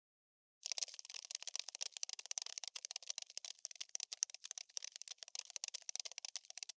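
Cockroach scurrying sound effect: a dense, rapid, irregular patter of tiny dry clicks and scratches like insect legs skittering. It starts after a moment of silence and cuts off abruptly near the end.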